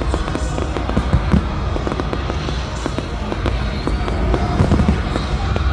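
Fireworks going off in quick succession, many sharp bangs and crackles over a deep rumble, with the display's music playing under them; the biggest bangs come near the end.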